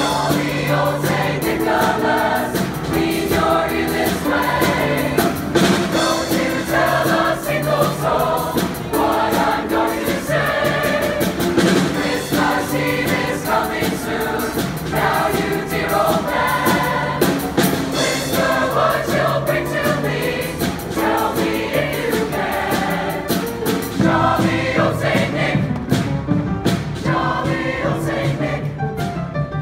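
Large mixed choir of male and female voices singing together.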